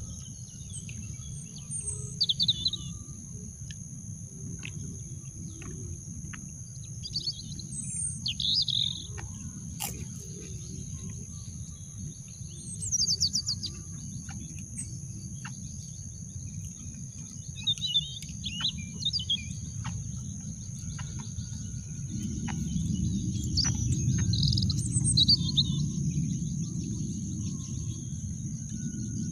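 Garden ambience: birds chirping in short bursts every few seconds over a steady high insect drone, with a low rumble that swells about two-thirds of the way through.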